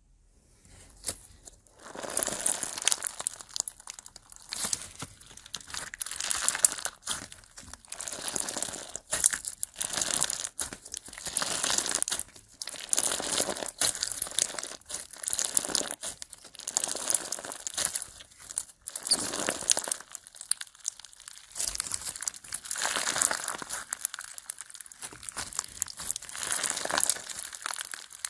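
Clear slime packed with tiny rose-shaped beads being squeezed and stretched by hand, giving dense crackling and clicking in repeated waves every second or two.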